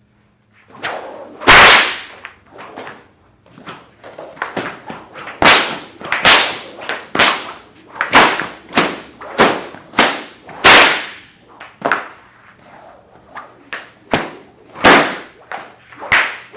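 A martial arts weapon swung hard again and again, a sharp swishing crack about once a second, the loudest about a second and a half in.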